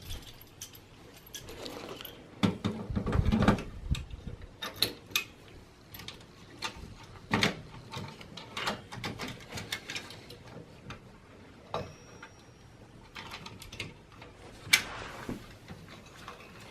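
Irregular clicks, knocks and scrapes of a CPU heatsink cooler being fitted back onto the processor in a desktop computer, metal and plastic parts handled against the motherboard's retention bracket. There is a louder rattling cluster a few seconds in and a sharp click later on.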